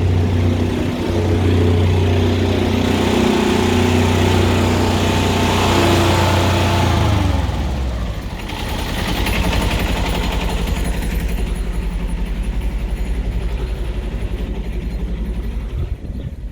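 High-pressure drain-jetting machine's engine running at steady high revs, then dropping to a slow, pulsing idle about seven seconds in, with a steady hiss over it.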